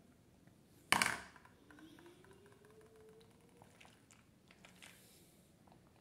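An empty thin plastic jelly cup set down on a hard tabletop: one sharp plastic clack about a second in that dies away quickly, followed by a few faint small clicks.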